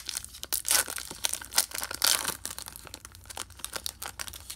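Foil wrapper of a Topps Chrome baseball card pack being torn open by hand: dense crinkling and crackling, with louder ripping about one second and two seconds in.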